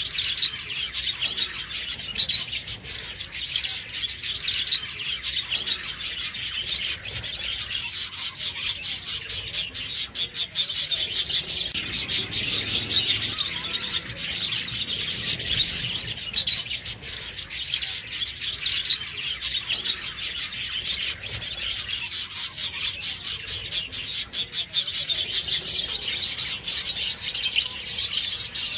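Budgerigars chirping and chattering nonstop, a dense stream of quick chirps and squawks.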